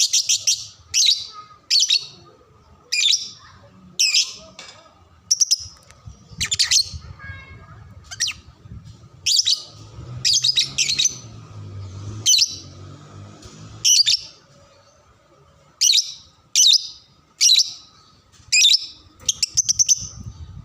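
Lovebird chirping in a long series of short, high, buzzy bursts, roughly one a second, some of them fast trills.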